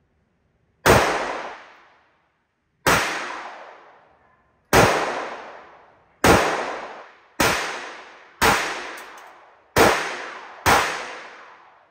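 Eight gunshots at a shooting range, fired one at a time about one to two seconds apart and coming a little faster near the end. Each shot is a sharp crack that trails off in a long echo.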